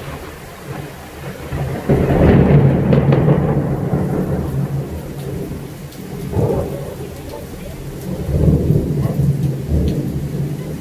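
Thunder rumbling over steady rain. A long peal swells about two seconds in and dies away over several seconds, and more rumbles follow later.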